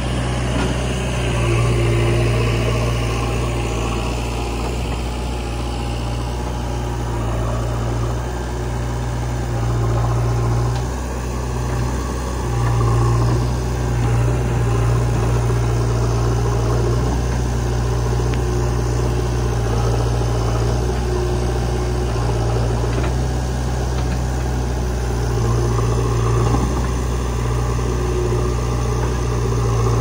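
Diesel engines running steadily at a low idle, the Mahindra 475 DI tractor close by and the JCB 3DX backhoe loader working just behind it. The level swells and dips a little a few times.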